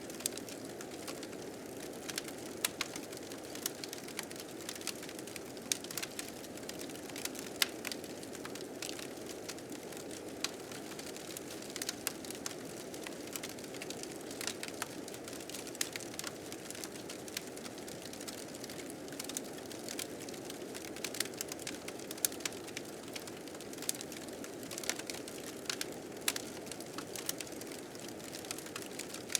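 Wood fire crackling with frequent sharp irregular pops, over a steady, gently swelling blizzard wind.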